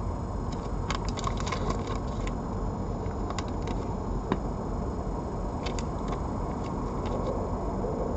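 Steady low background rumble and hiss, with scattered light clicks and ticks coming in small clusters.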